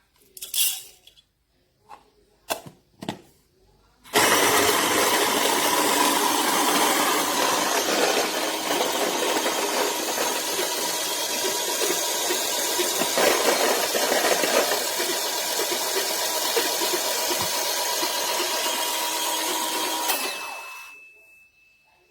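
BEEM 3980 Grind-Intense electric conical burr coffee grinder running: a steady grinding whir that starts abruptly about four seconds in, runs for about sixteen seconds and winds down near the end. A few short clicks and knocks come before it starts.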